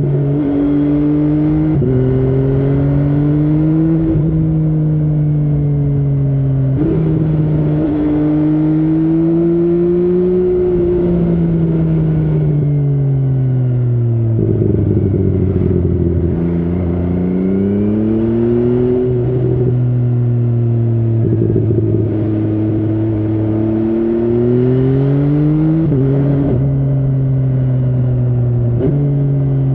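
MV Agusta Brutale 800's inline three-cylinder engine under way: the revs climb and drop sharply at several gear changes, sink low as the bike slows about halfway through, then pick up again through further shifts.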